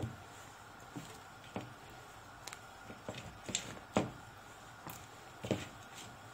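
Whole eggplants being dropped one at a time into a pot of hot water, each landing as a short knock or splash against the others and the pot, about seven times, the loudest about four seconds in, over a faint steady hiss.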